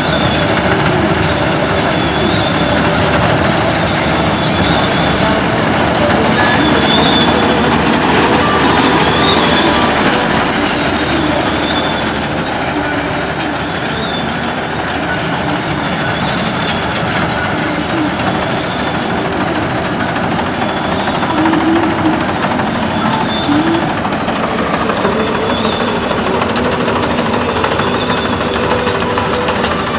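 Combine harvester running steadily while cutting ripe paddy rice, its engine and machinery making a loud, continuous noise.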